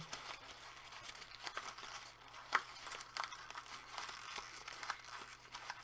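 Paper being gently scrunched in the hands, making a soft, sparse, irregular crackle that imitates a calm fire, with one louder crackle about two and a half seconds in.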